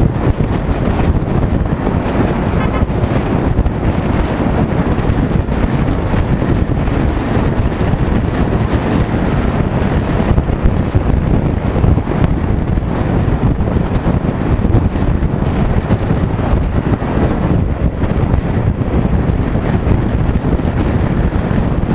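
Steady wind rushing and buffeting over the microphone of a camera on a moving motorcycle, with road and vehicle rumble underneath.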